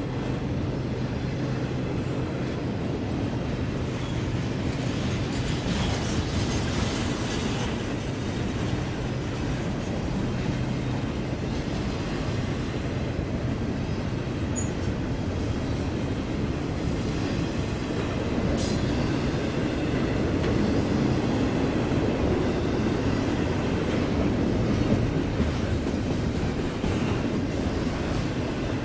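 Double-stack intermodal container train's well cars rolling past, a steady rumble of steel wheels on rail with occasional sharp clicks, getting a little louder past the middle.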